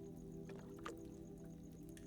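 Soft, steady ambient music drone with a wood fire crackling over it: two sharp pops in the first second.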